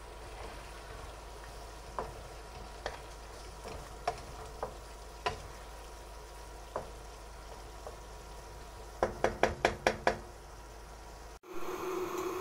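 Chicken, carrot and green-bean stir-fry sizzling in a non-stick pan while a wooden spatula stirs it, with scattered knocks of the spatula against the pan and a quick run of about eight taps about nine seconds in. In the last second a different steady hum takes over.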